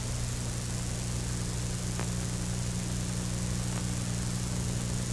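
Steady low electrical hum under an even hiss, the background noise of an old film and tape transfer, with a couple of faint clicks.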